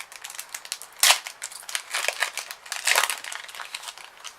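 Foil Pokémon card booster pack wrapper being opened by hand, crinkling and rustling, with louder rushes of crackle about a second in and again around three seconds in.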